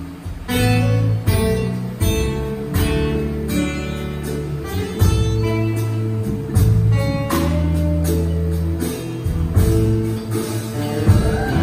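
Live acoustic guitar picking a melody one note at a time over long held bass notes from the band, with no singing.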